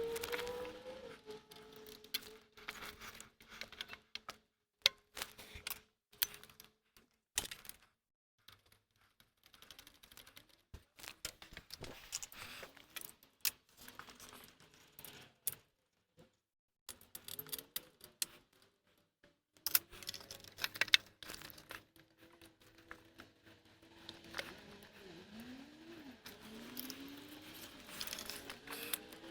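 Scattered metallic clicks and clinks of hand tools and bolts being worked, some in quick runs like a ratcheting wrench, as a starter motor is fitted and bolted into the car.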